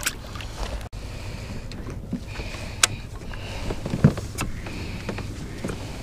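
Kayak moving on the water: a steady low hum with water noise, broken by a few sharp clicks and knocks, the loudest about three seconds in and again about four seconds in.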